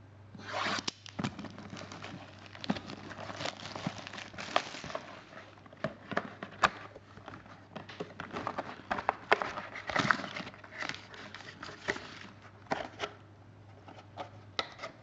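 Packaging crinkling and tearing as a box of trading cards is opened, with irregular clicks and rustles as the card packs are handled and taken out.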